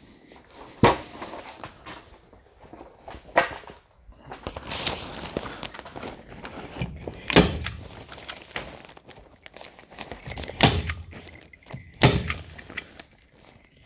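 A hand-powered staple gun fires staples through a polyethylene vapor barrier sheet into wall framing: about five sharp snaps a few seconds apart. Between them the plastic sheet rustles and crinkles as it is pulled and smoothed.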